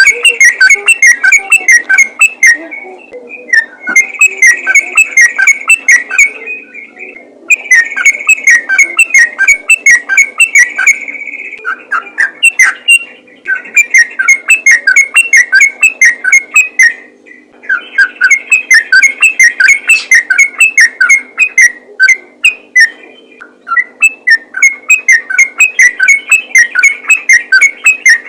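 Yellow-vented bulbul (trucukan) singing loudly: rapid strings of short bubbly whistled notes, in phrases a few seconds long separated by brief pauses.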